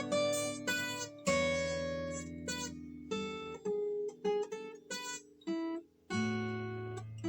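Yamaha steel-string acoustic guitar played freely by hand: a loose run of single plucked notes and struck chords, each ringing out and fading, with a short pause a little before the end.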